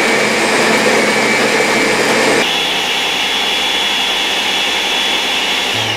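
Ninja countertop blender running, puréeing banana, mixed berries and juice into a smoothie. About two and a half seconds in, its motor whine steps up to a higher pitch, and near the end the motor begins to wind down.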